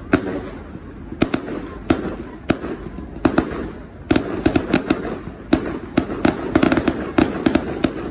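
Aerial fireworks going off: a run of sharp bangs and crackles at uneven intervals over a low rumble, coming faster and thicker from about four seconds in.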